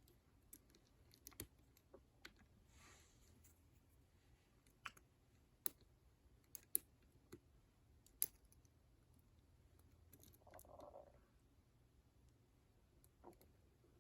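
Scattered faint metallic clicks, about ten spread irregularly, as a lock pick and tension wrench work the pins in the tight keyway of a Master Lock ProSeries 7050 six-pin padlock.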